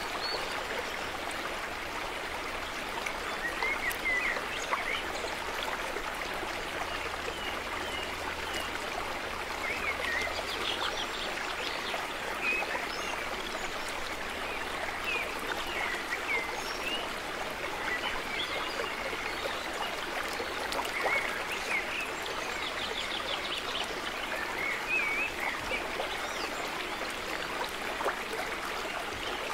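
Steady running stream, with birds chirping briefly now and then over it.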